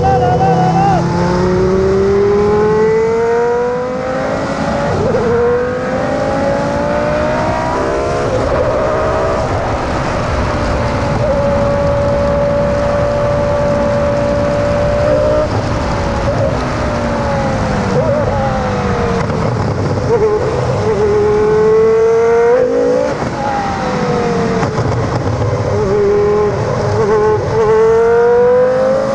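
Formula 1 car's V10 engine at high revs, climbing in pitch as it accelerates, with sudden drops at gear changes. The pitch holds steady for a few seconds midway, then falls as the car slows and climbs again near the end.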